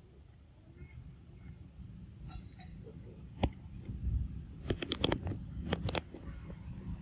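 A macaque biting into an unripe green mango and tearing off its peel: one sharp crunch about three and a half seconds in, then a quick run of crunching snaps near the end, over a steady low rumble.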